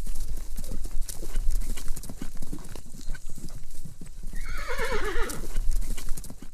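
Horse hooves clip-clopping in a fast, dense run of hoofbeats, with a horse whinnying over them about four seconds in: one quavering call that falls in pitch.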